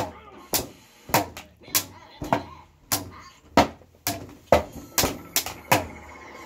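Sticks striking a drum in a steady beat, about two hits a second, each a sharp knock; the beat stops shortly before the end.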